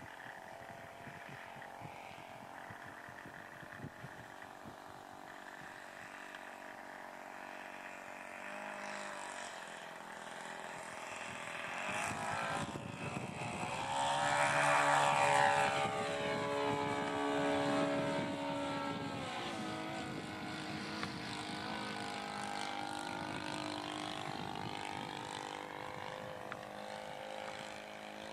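Large model Piper Cub's engine and propeller flying past: the drone grows louder as it comes in low about halfway through, the pitch drops as it passes, then it settles to a steadier, fainter drone as it climbs away.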